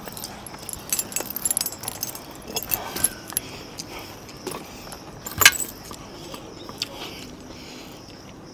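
Scattered light metallic clinks and jangling, thickest in the first three seconds, with one sharper, louder clink about five and a half seconds in.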